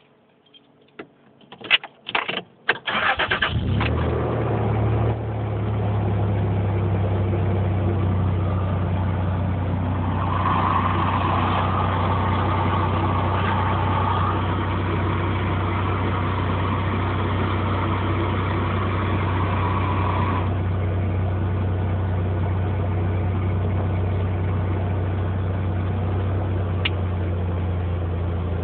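Toyota Tacoma pickup's engine cranked and started, catching about three seconds in and then idling steadily. A higher, steady rushing sound joins the idle for about ten seconds in the middle and cuts off abruptly.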